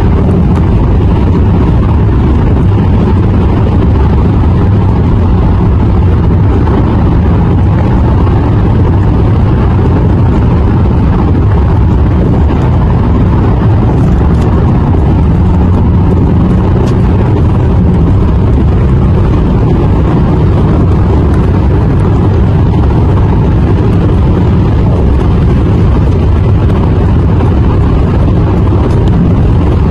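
Steady low rumble of road, tyre and engine noise heard inside a car cabin while driving on a highway.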